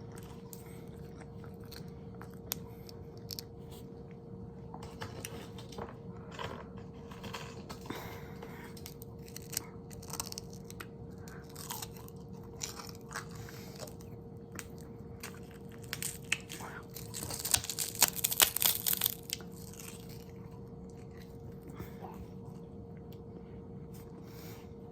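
Close-miked eating sounds: chewing and biting with scattered crunches, building to a denser, louder run of crunching about seventeen to nineteen seconds in.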